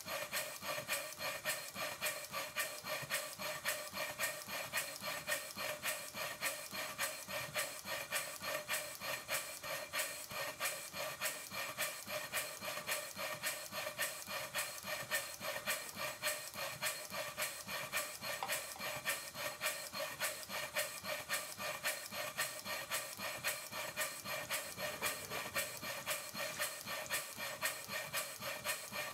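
A 2-inch scale Fowler A7 traction engine model running steadily, its cylinder exhaust beating in an even, unbroken rhythm. The engine runs without rattling now that its piston rod gland has been repacked, its small end bearing adjusted and its crosshead slipper shimmed.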